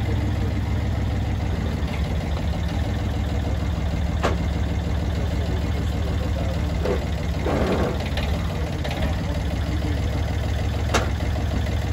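Engine of a Watanabe tracked dumper running steadily, with a sharp knock about four seconds in and another near the end, and a short rushing noise a little before eight seconds.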